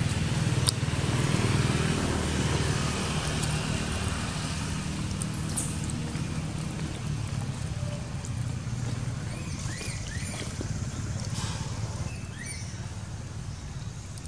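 Low, steady engine hum that slowly fades, with a single click about a second in and a few faint high chirps.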